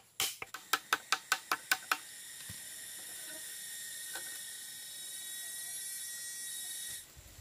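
A knife blade striking a split bamboo tube in quick, light strokes, about five a second, which stop about two seconds in. Then a steady, high-pitched buzzing hiss that cuts off suddenly near the end.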